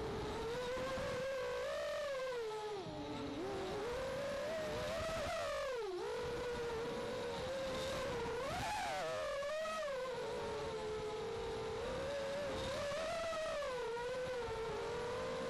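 Eachine Wizard X220 FPV racing quadcopter's brushless motors whining in flight, the pitch rising and falling with the throttle. It drops low about three and six seconds in and jumps up briefly near nine seconds.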